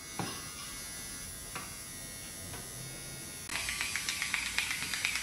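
A small electric motor buzzing steadily. About three and a half seconds in it is joined by a louder run of rapid, evenly spaced clicking.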